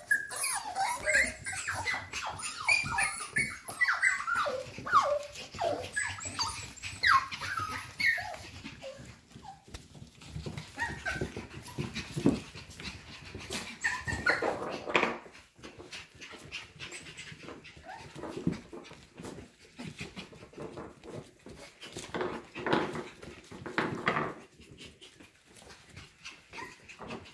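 Cockapoo puppies at play, yipping and whimpering in quick succession for the first eight seconds or so, then quieter scuffling with occasional short yips.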